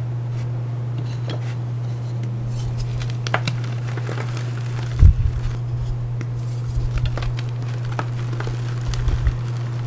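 Hard, glassy reformed gym chalk being crushed and crumbled in the hands: scattered crisp crunches and crackles, with a heavier crunch about five seconds in, over a steady low hum.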